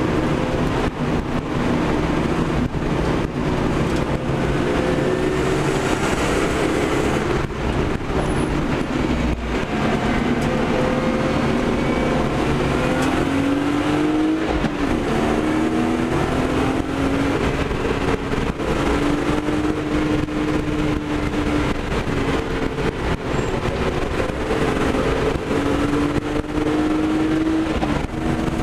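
BMW 325i straight-six engine under hard driving, heard from inside the cabin over road and wind noise. Its pitch climbs and falls with the revs, with a sharp drop about halfway through, then holds high and steady.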